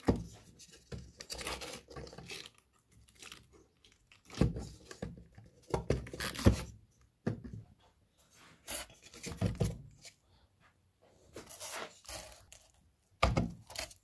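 Irregular knocks, scrapes and rubbing as a small solar panel and its metal mounting brackets are handled and pushed against a weathered timber board to line up bolt holes.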